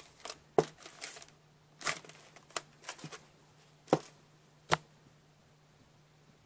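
A run of irregular light knocks and taps on a hard tabletop, about eight in the first five seconds, with the loudest about half a second in and near the end of the run.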